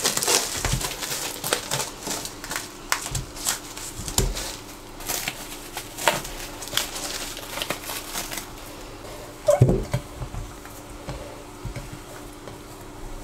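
Plastic cling film crinkling as it is peeled off a glass bowl, then hands punching down and working risen yeast dough inside the bowl, with soft squishing and clicking handling noise. A louder knock comes about two-thirds of the way through.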